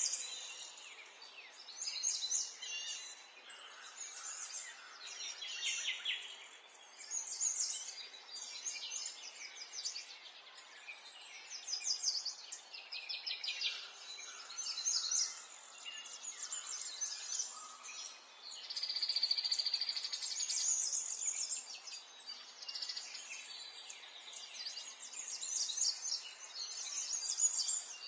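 Several birds singing: short phrases of high chirps and rapid trills every second or two, over a faint steady background hiss. About two thirds of the way through, one longer, even trill holds for a couple of seconds.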